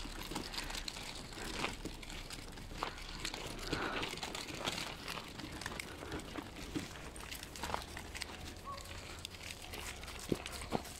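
Irregular crunching and rustling of footsteps and dog paws on a gravel trail and dry fallen leaves.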